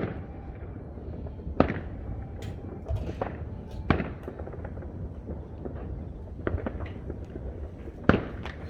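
Fireworks going off: a string of sharp bangs at irregular intervals of a second or two, over a steady low rumble. The loudest bangs come right at the start and about eight seconds in.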